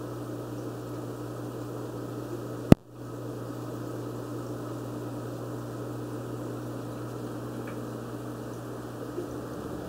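Aquarium filter running with a steady low hum and water noise. A single sharp click about three seconds in is followed by a brief dip in the sound.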